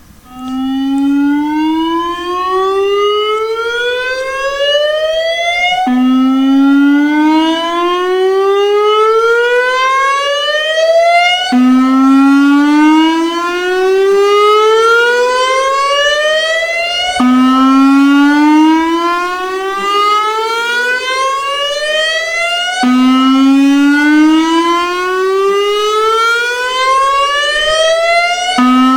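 Severnside warning siren sounding its test signal: a wailing tone that climbs steadily in pitch for about five and a half seconds, drops back abruptly and climbs again, over and over.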